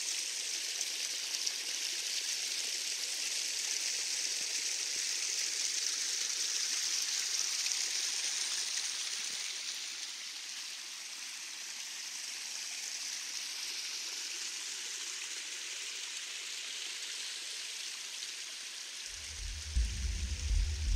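Stream flowing, a steady rushing babble of water. About 19 seconds in, low throbbing music comes in.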